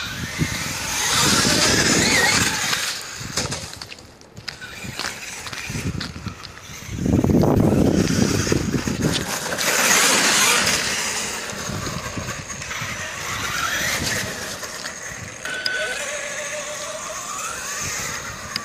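Traxxas E-Revo brushless RC truck driving on wet, slushy pavement, its electric motor whining up and down in pitch with the throttle. Louder rushes of tyre and slush noise come about a second in and again from about seven to eleven seconds in, as the truck passes close.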